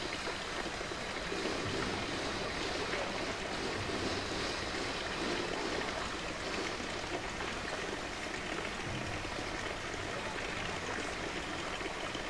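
Steady rush of running water, with no break or change.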